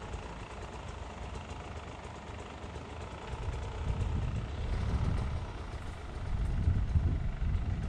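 Enduro dirt bike engine idling, with irregular louder low rumbles over the second half.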